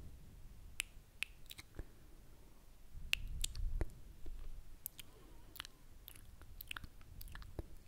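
Close-miked wet mouth sounds: scattered lip and tongue clicks and smacks, irregular and sharp, with a low rumble for about a second around three seconds in.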